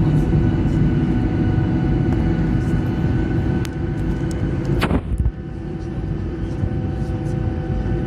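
Jet airliner noise: a steady low rumble with several steady whining tones over it. There is a short sharp sound about five seconds in, after which it runs a little quieter.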